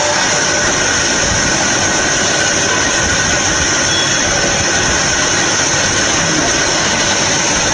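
CNC metal-cutting band saw running, a steady even machine noise with a constant high-pitched whine over it.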